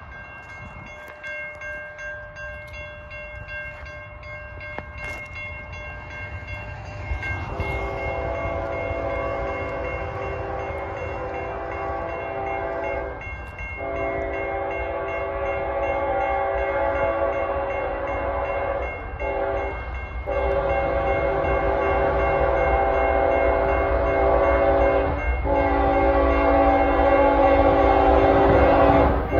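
Diesel freight locomotive's air horn, a Norfolk Southern ET44AC, sounding a run of long blasts with one short blast, the grade-crossing horn pattern, loud from about seven seconds in. The low rumble of the approaching train grows louder throughout.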